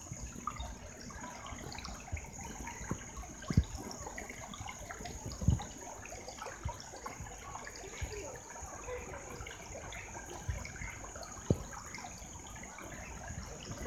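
Shallow stream trickling steadily over a stony bed. A few short, low thumps stand out above it, the clearest about three and a half, five and a half and eleven and a half seconds in.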